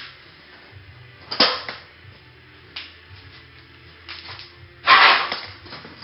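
Two sharp clattering knocks, about a second and a half in and again near five seconds in, with lighter clicks between them, over faint background music.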